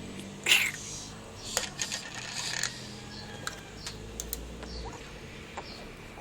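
A sharp knock, then a short cluster of light clicks and rattles and a few fainter ticks: small hard objects being handled.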